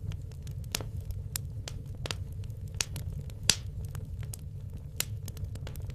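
Wood fire burning in a fireplace: irregular sharp crackles and pops from the logs, one loud pop about three and a half seconds in, over the low rumble of the flames.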